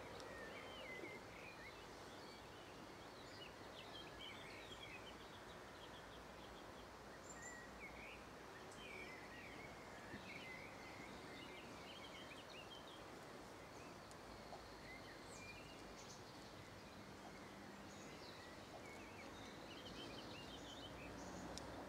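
Faint outdoor ambience: a steady hiss of background noise with many short, scattered bird chirps.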